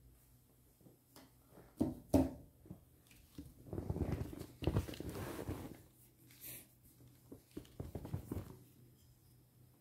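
Handling and movement noise: two sharp knocks about two seconds in, then a few seconds of rustling, and a scatter of light clicks near the end.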